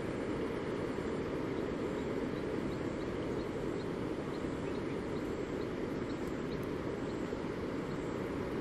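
Wind blowing across the microphone outdoors, a steady low rumbling hiss.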